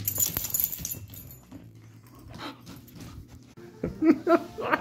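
Huskies panting and snuffling close to the microphone, with a few short, louder sounds near the end.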